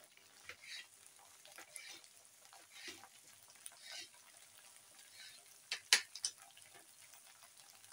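Sliced okra frying in oil in a karahi: faint, steady sizzling with scattered small crackles. A few sharp clicks about six seconds in are the loudest sounds.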